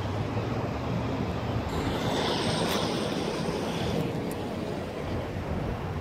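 Distant diesel freight locomotives rumbling, mixed with wind on the microphone. The noise swells a little about two seconds in.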